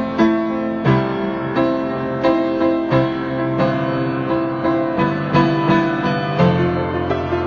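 Keyboard with a piano sound playing an improvised, superhero-style theme: sustained chords with a bass line, new notes struck about every half second and the harmony changing every second or two.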